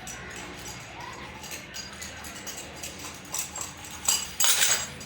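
Light metallic clinks and knocks of hand tools, with a louder clattering, ringing burst of metal about four seconds in.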